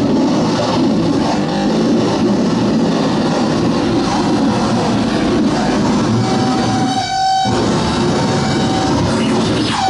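Harsh noise music: a dense, distorted wall of sound. A steady held tone comes in about six seconds in, and the texture briefly drops out just after seven seconds.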